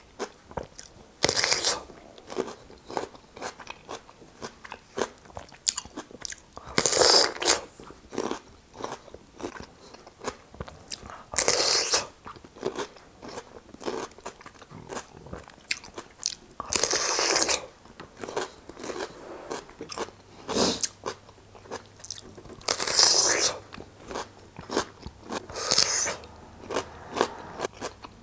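Raw cucumber being bitten and chewed close to the microphone: about six loud crisp crunches of a bite, several seconds apart, with the smaller wet crunching of chewing between them.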